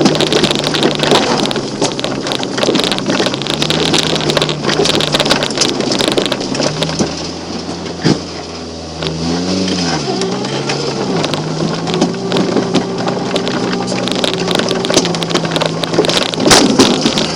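Volkswagen Golf Mk2 1.3 engine running while the car is driven over rough ground, under a constant noisy rattle and rush from the body and wind. About nine seconds in the revs rise and fall quickly; there is a sharp knock about eight seconds in and heavier thumps near the end.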